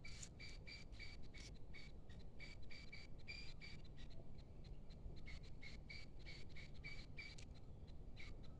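Faint cricket chirping: a thin high trill broken into regular short pulses, over a low rumble.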